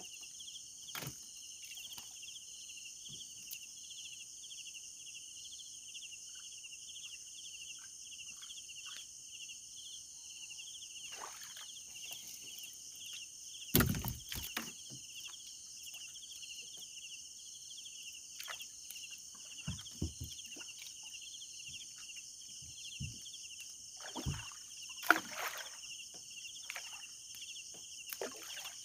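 Steady, high insect chorus with a fast pulsing trill, broken by scattered knocks and rustles, the loudest about halfway through and again near the end.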